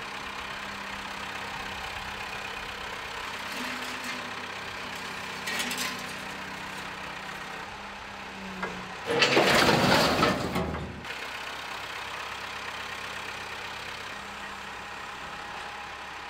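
Engine of a hydraulic clamshell grab crane running steadily. About nine seconds in there is a loud crash lasting about two seconds as the grab drops scrap metal into a steel skip.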